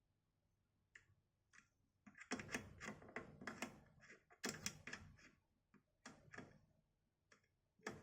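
Torque wrench ratcheting in short runs of quick metallic clicks, with a few single clicks between, as the bolts of a Leyland gear shifter are tightened down on a fresh gasket.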